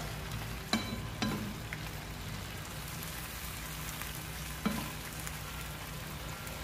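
Fish adobo cooking in a wok, a steady hiss from the pan, with a wooden spatula knocking against the wok three times as it stirs: twice about a second in and once past halfway.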